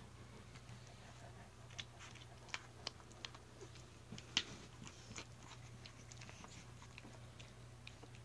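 Newborn English Mastiff puppies mouthing and nuzzling each other, making faint scattered wet smacks and clicks, the sharpest about four seconds in, over a low steady hum.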